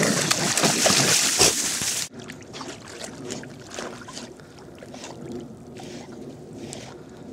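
Dogs splashing and wading in shallow water at the shoreline, loud for about two seconds, then cut off abruptly. Faint water lapping follows.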